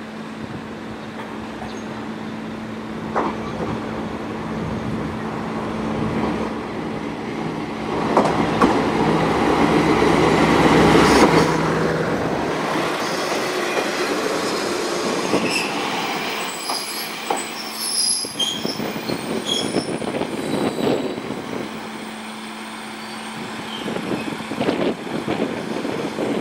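JR Kyushu KiHa 40-series diesel railcar arriving: its diesel engine grows louder as it runs past, loudest about ten seconds in. It then squeals with high-pitched wheel and brake noise as it slows to a stop, the engine idling quietly afterwards.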